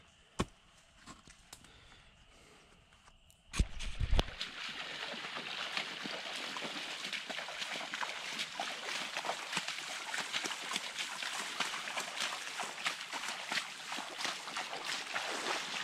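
Several people wading through shin-deep muddy floodwater in boots, their steps splashing and sloshing steadily. This starts about four seconds in, after a few knocks. Before that there is only quiet with a single click.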